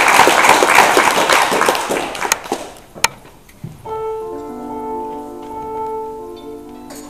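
Audience applause fading out, then a single click, then steady held notes of several pitches from about four seconds in: a tuning reference played while the violin is being tuned.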